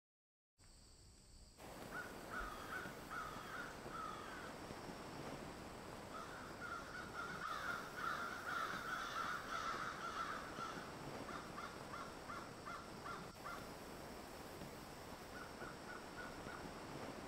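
Crows cawing in several bouts of short repeated calls over a steady background hiss, starting about half a second in.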